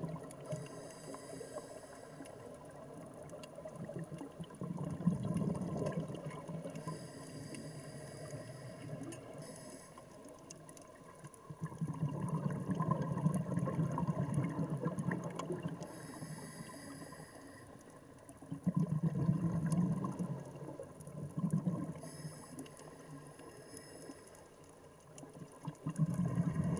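Scuba diver breathing through a regulator underwater: a short hiss on each inhale, then a longer low rush of exhaled bubbles. The cycle repeats every several seconds.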